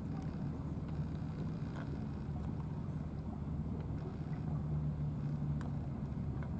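Steady low rumble with a faint hum, like a distant motor, and two faint clicks from cats eating out of plastic dishes.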